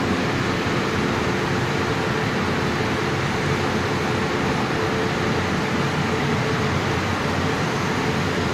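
Automatic train washing plant running: tall vertical rotating brushes and their drive motors working against the side of a passenger train car. A steady rushing noise with a faint steady hum underneath.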